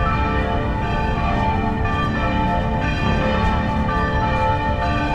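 Church bells ringing, many overlapping steady tones, over a steady low rumble.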